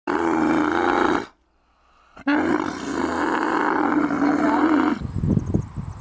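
Camel calling: a rough, low bellow of about a second, a short gap, then a longer bellow of about three seconds. Near the end it cuts to a different outdoor sound, with insects chirring and low knocks.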